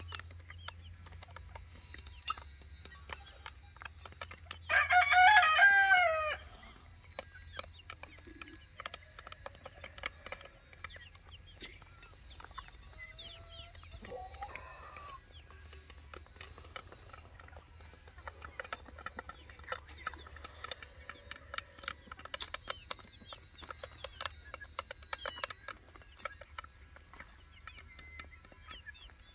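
Chickens pecking feed from a dish, beaks ticking against it many times, with soft clucks. About five seconds in, one loud crow lasting about a second and a half.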